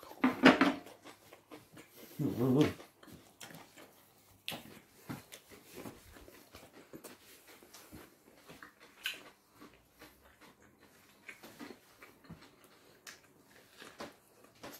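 A dog's voice: two short calls, about half a second and two and a half seconds in, followed by scattered small clicks and taps.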